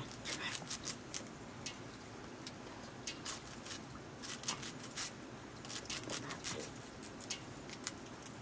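Fiddlehead fern greens being sliced by hand against a sickle blade: a quick, irregular run of crisp snipping cuts.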